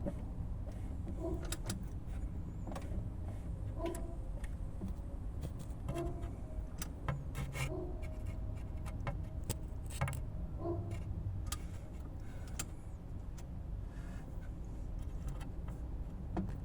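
BMW M57 diesel engine turning over steadily on its starter motor without catching. It cranks but will not start, the sign of a broken crankshaft reluctor ring in the owner's view.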